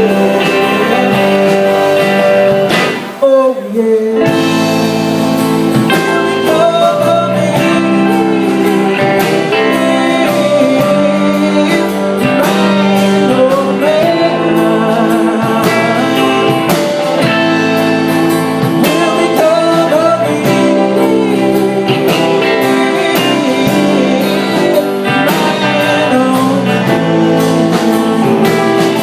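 Live acoustic band playing a blues-tinged song: a woman's singing voice over strummed guitar. The music breaks off briefly about three seconds in, then carries on.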